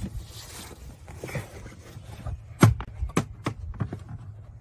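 Rubber pond liner being handled and pulled back around a skimmer faceplate: soft rustling, then a few dull knocks, the loudest a little past halfway.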